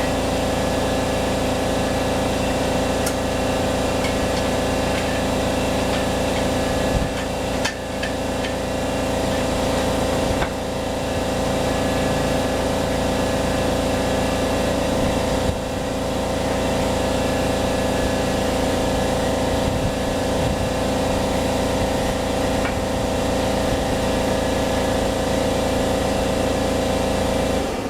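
Shop air compressor running steadily, with a few light metallic knocks over it; it stops suddenly near the end.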